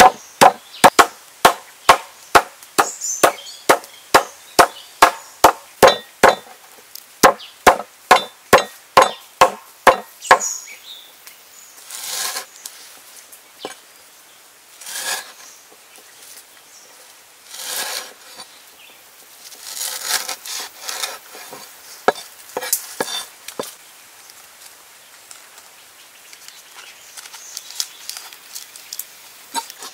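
Wooden pestle pounding a bunch of lemongrass stalks on a wooden chopping board, about two dull knocks a second, stopping about ten seconds in. After that, intermittent rustling and crackling as the crushed lemongrass stalks are handled.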